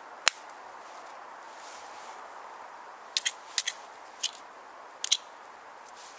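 Sharp plastic clicks and taps from a small plastic pill pot used as a match container being handled and opened: one click just after the start, then a cluster of about half a dozen clicks about three to five seconds in.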